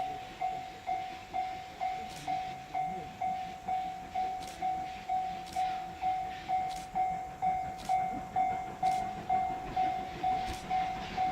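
Railway level crossing warning bell ringing, one clear tone repeated at a steady pace of about two strikes a second: the crossing is closed for an approaching train.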